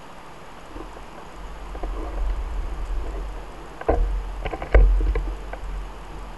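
Wind rumbling on the microphone of a bicycle-mounted camera while riding, swelling after about a second and a half and fading near the end. Two sharp knocks, about four seconds in and just before five, the second the loudest, with a few light rattles between them as the bike jolts over the road.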